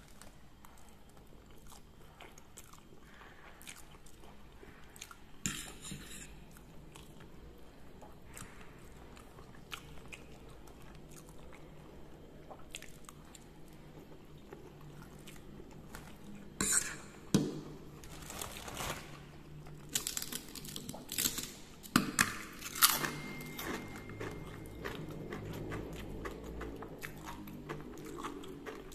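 Close-miked eating: chewing mouthfuls of fried instant noodles, then, past the middle, a run of loud crisp crunches as the crunchy fried seroja crackers are bitten, followed by steady chewing.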